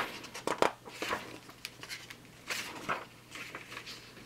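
Rulebook pages being turned and handled: a run of short paper rustles and flips at uneven intervals, a few of them sharp.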